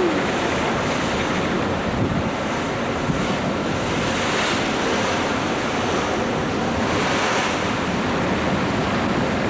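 Steady wind blowing across the microphone over the rushing wash of the sea, heard from a ferry under way.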